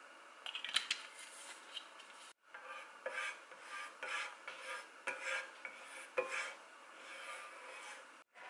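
Food-prep sounds: irregular scraping and rubbing with light clicks of utensils against dishes, broken by a short cut to silence about two seconds in.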